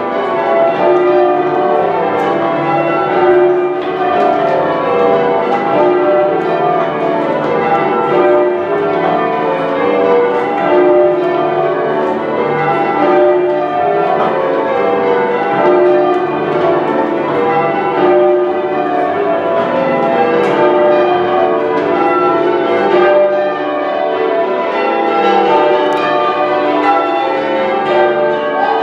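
A cathedral ring of ten church bells being rung in changes: a continuous stream of overlapping bell strikes at many pitches.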